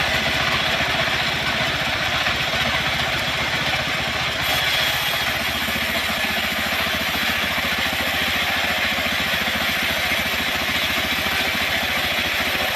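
An engine running steadily at an even speed, without revving up or cutting out.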